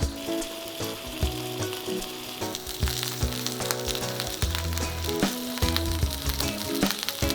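Food frying in hot oil in a pan, a steady sizzle that grows louder about three seconds in.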